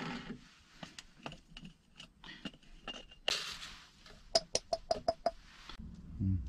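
Light handling clicks and knocks as ground coffee is tipped from a cordless grinder's catch cup into a paper filter, with a short soft rush of grounds about halfway through. This is followed by a quick run of about six sharp, slightly ringing taps as the cup is knocked against the dripper to shake out the last grounds.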